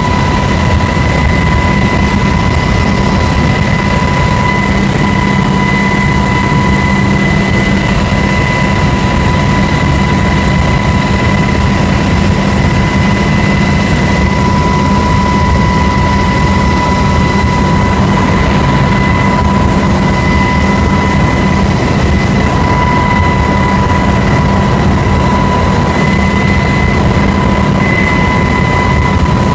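Loud, steady engine noise inside the cabin of a military aircraft in flight, with a constant high whine running through it.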